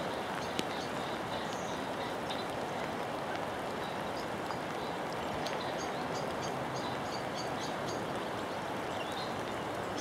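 Steady outdoor rushing noise with small birds chirping high above it in short repeated notes, most of them from about five to eight seconds in.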